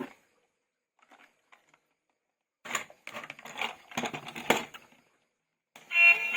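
Clattering and crunching of plastic toys and packaging being handled, in a few faint ticks and then a run of short bursts; music starts loudly near the end.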